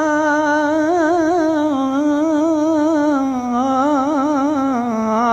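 A male naat reciter's unaccompanied voice holding one long sung note, ornamented with quick wavering turns, the pitch stepping down a little past the middle.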